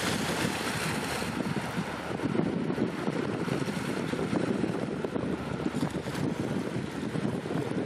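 Wind buffeting the microphone in a steady rush, over choppy open water.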